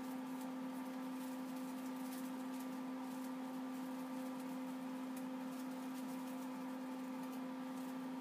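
A steady, even hum with overtones, unchanged throughout, with faint light ticks over it from the phone being handled.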